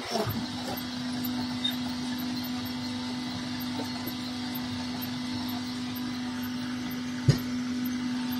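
Fly ash brick press's motor running steadily between pressing cycles, a constant hum. A single sharp knock about seven seconds in.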